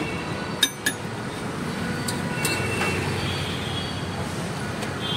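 Busy street-food stall ambience: a steady hiss of noise, with two sharp metal clinks of utensils less than a second in and a few fainter clinks later.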